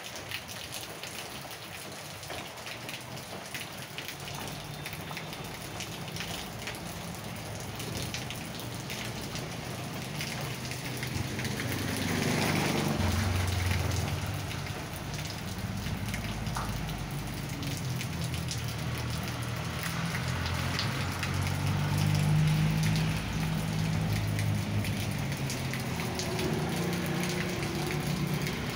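Steady rain falling on a wet paved street. Partway through, the low hum of a motorcycle engine rises over the rain as a motorbike passes, loudest about halfway through and again later on.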